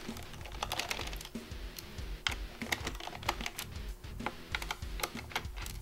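Light, irregular clicks and ticks of a precision screwdriver turning a screw out of a Gigabyte Aorus 5 laptop's plastic bottom cover.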